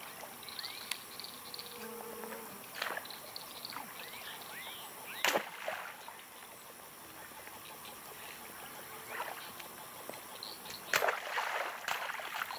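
Water splashing in several separate bursts, the sharpest about five seconds in and a cluster near the end, as people wade and drag something through shallow river water. Insects chirp faintly underneath.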